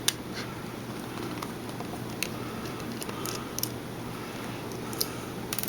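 Faint, scattered small clicks and ticks of a precision screwdriver working a tiny screw and handling a compact camera's body, a few isolated clicks a second or so apart.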